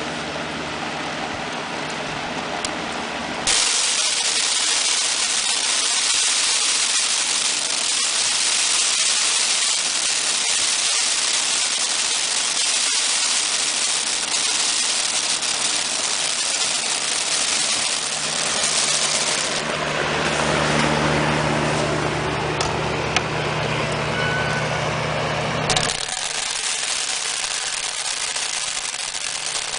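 Blower for winnowing threshed wheat: its motor runs steadily, then about three seconds in a loud rush of air starts abruptly and blows until a few seconds before the end, when it cuts back to the motor alone.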